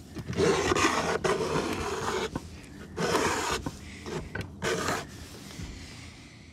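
Metal palette knife scraping paint off a painting in several strokes, a long rasping one first, then shorter ones.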